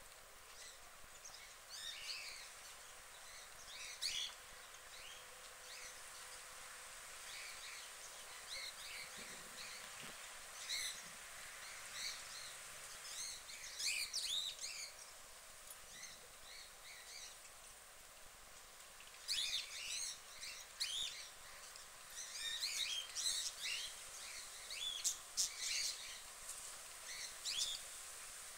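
Small birds chirping and singing in short, high, repeated phrases, busiest in the last third, over a steady background hiss.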